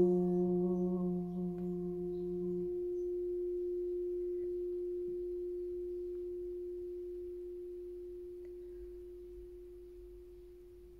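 Crystal singing bowl, tuned to the heart tone, ringing out after being played with its mallet: one long steady tone slowly dying away. A lower tone underneath drops out about three seconds in.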